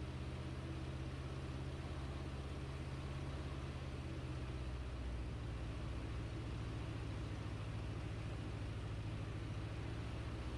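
Light aircraft's piston engine and propeller droning steadily in cruise, heard from inside the cockpit with airflow noise over it; the engine note shifts slightly about five seconds in.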